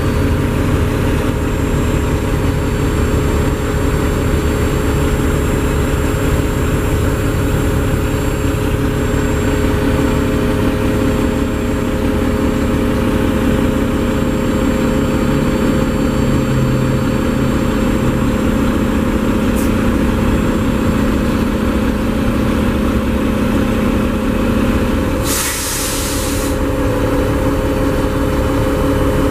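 Mack MP7 inline-six diesel of a side-loader garbage truck idling steadily, heard inside the cab. Near the end a short hiss of released air, about a second long, cuts across the engine.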